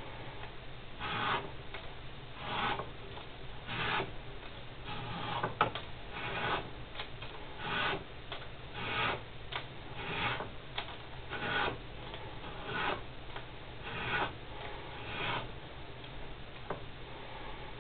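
Strip of abrasive sanding film pulled by hand over the felt of a grand piano hammer to reshape it: a regular run of about a dozen short rasping strokes, roughly one every second and a half, that stop a couple of seconds before the end.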